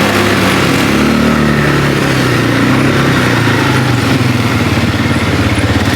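A vehicle's engine running steadily while under way, with a haze of road and wind noise over it.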